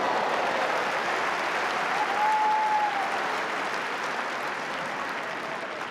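Tennis crowd applauding after a point won, clapping that swells at the start and slowly dies away, with a brief high held note about two seconds in.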